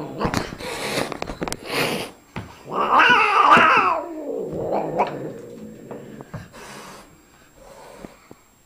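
Old cat hissing a couple of times, then letting out one loud, wavering yowl about three seconds in: a hostile warning at a puppy.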